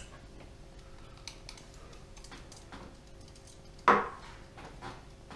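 Small kitchen timer being handled and set at the stove: faint scattered clicks, then one sharp knock with a brief ring about four seconds in.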